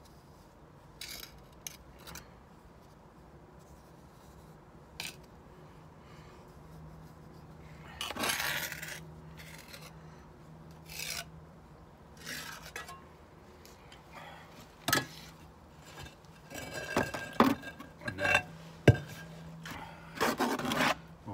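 Steel brick trowel scraping and dabbing wet mortar onto brickwork in short, irregular scrapes, with a few sharp knocks in the second half.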